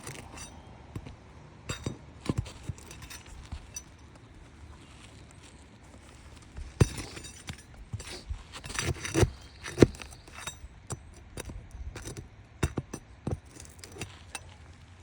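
Asphalt roof shingles being worked loose by hand with a metal tool after their nails are pulled: irregular clinks, taps and short scrapes, with louder bunches of knocks about seven and nine to ten seconds in.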